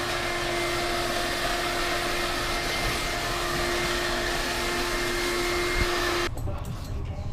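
Large wood chipper running steadily: an even rushing whirr with a constant whine in it, which stops abruptly about six seconds in.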